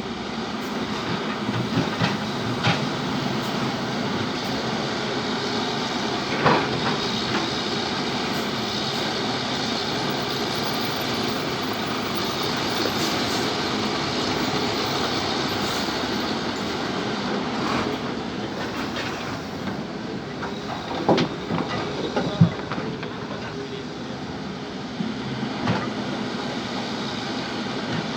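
Hydraulic excavator working: its engine and hydraulics running steadily under load, with sharp metallic clanks now and then from the working machine.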